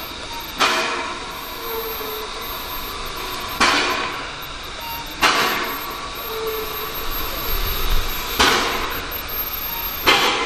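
Small steam tank locomotive at rest, giving five sharp puffs of steam with a metallic clank, at alternating gaps of about three and two seconds, over a steady hiss of steam.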